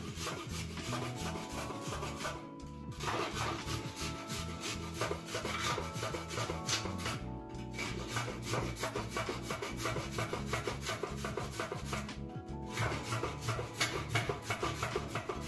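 Raw carrot grated on a handheld flat stainless-steel grater: a rapid run of rasping scrape strokes that stops briefly three times.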